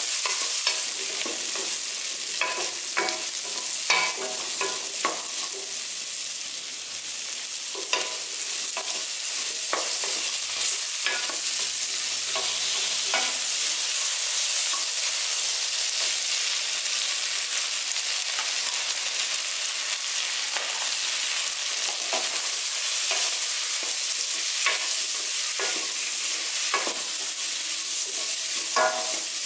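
Chopped vegetables sizzling in hot oil in a steel pot while a spatula stirs them, with frequent irregular scrapes and taps of the spatula against the pot over a steady sizzle.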